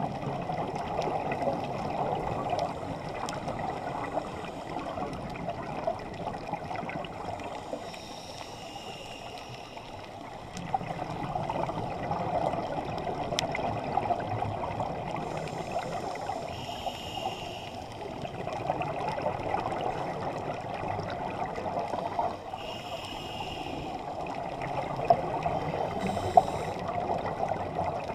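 Scuba diver breathing through a regulator underwater, picked up by a GoPro: a continuous bubbling rush from exhaled bubbles, broken about every seven seconds by a short hiss of an inhalation.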